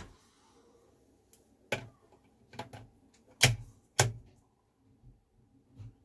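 Sharp plastic clicks and knocks from a plug-in energy meter and mains plug being handled at a wall socket: about five loud ones between roughly one and a half and four seconds in, with a few fainter ones after.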